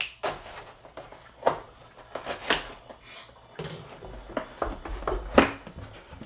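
A cardboard shipping box being opened: a knife slitting the packing tape, then the flaps handled and pulled open, a run of short sharp scrapes and knocks with the loudest about five seconds in.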